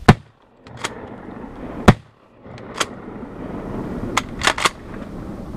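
Shotgun shots: three loud blasts, one at the start, one about two seconds in and one at the very end, each followed by a brief dropout of all sound, with a few fainter sharp cracks between.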